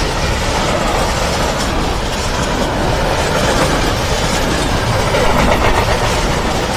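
Freight train wagons rolling past on the rails: a steady, loud noise of steel wheels on track.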